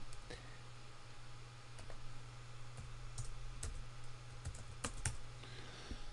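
A handful of separate keystrokes on a computer keyboard, spaced unevenly, over a steady low hum.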